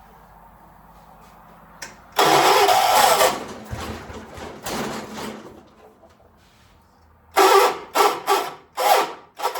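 Starter cranking the engine of a 1976 John Deere 300 garden tractor: one longer crank about two seconds in that tails off, then a series of short cranking bursts near the end, without the engine catching to run. It is a hard start.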